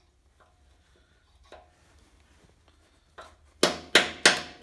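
A few faint clicks, then, after about three and a half seconds, four quick sharp strikes about a third of a second apart. A hammer is driving a screwdriver against the stuck brake-hose retainer clip on the frame bracket of a 1947 GMC truck to knock it off.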